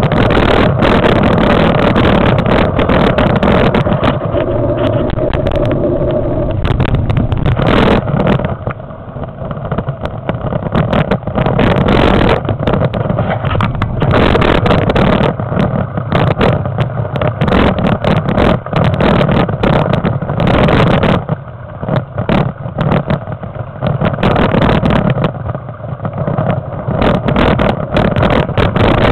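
Wind buffeting the microphone and the rumble and rattle of a mountain bike riding a rough dirt track, loud and jolting, easing off briefly a few times.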